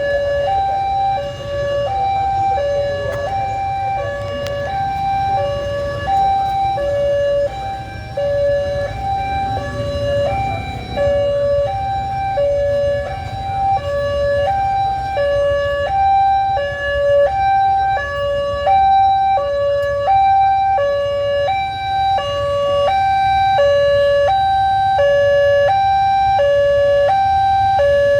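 Two electronic railway level-crossing warning alarms sounding together, each a two-tone high-low signal repeating about once a second, over a low traffic rumble. The alarm signals that the crossing is closed for an approaching train.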